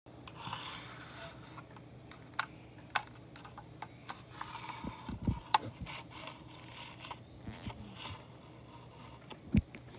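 Handling noise: irregular rubbing and scraping with scattered sharp clicks and a couple of dull thumps, the loudest near the end.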